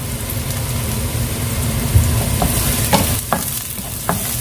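Chopped onion and garlic sizzling in oil in a frying pan while being stirred, with a few short clicks of the spatula against the pan in the middle. The onion is being browned slightly to bring out its flavour.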